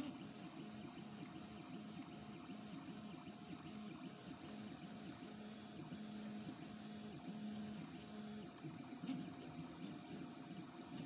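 Stepper motors of a home-made 3D printer, converted to a pen plotter, whining as they drive the pen head across a drawing. It is a low hum that keeps stepping between pitches as the moves change, with a brief click about nine seconds in.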